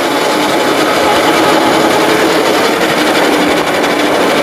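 Small 5-inch gauge diesel-outline locomotive running along the track: a steady whine from its drive with the rumble of its wheels on the rails.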